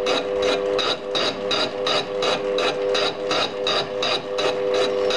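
A lathe fly cutter taking an interrupted cut across the end of a rough cast cylinder. The single-point tool strikes the metal once per revolution, about four to five times a second, over the steady two-note hum of the running lathe.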